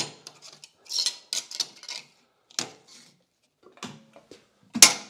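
Small aluminium part and a narrow clamping leaf being set up on a magnetic sheet-metal brake: a series of light metal clicks and clacks, with one louder clunk near the end.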